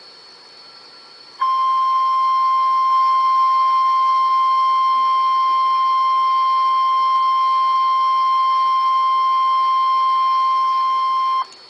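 NOAA Weather Radio warning alarm tone, a single steady 1050 Hz tone, sounding over faint radio hiss. It starts about a second and a half in, holds for about ten seconds, and cuts off sharply. It is the alert that announces a warning broadcast is about to be read.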